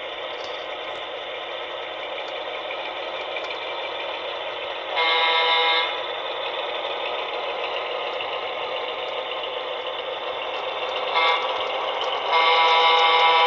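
A model locomotive's DCC sound decoder plays EMD E7 diesel engine sounds through its small onboard speaker: a steady thin-sounding engine rumble. A horn blast of about a second sounds about five seconds in, a short toot follows near eleven seconds, and a longer horn starts a second later.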